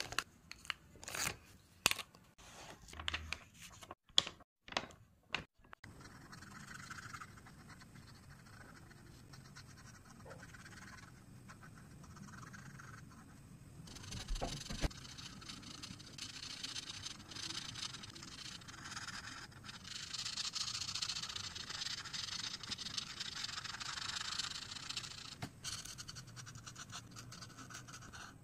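A few seconds of sharp clicks and rustles, then a marker's felt tip scratching and rubbing across paper as areas are colored in. The scratching grows louder about halfway through.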